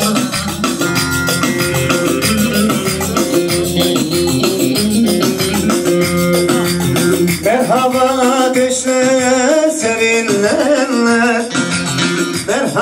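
Turkish folk dance tune (oyun havası) played with a steady percussion beat; about seven and a half seconds in, a louder wavering melody line comes in over it.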